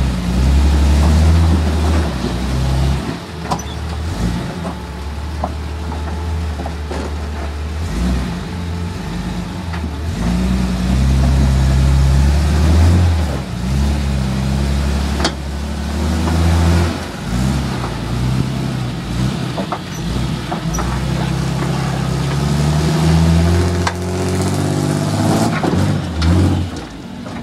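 Off-road race vehicle's engine revving hard and easing off again and again while it crawls over rock, its pitch rising and falling in bursts. Now and then a sharp knock from the chassis or tyres striking rock.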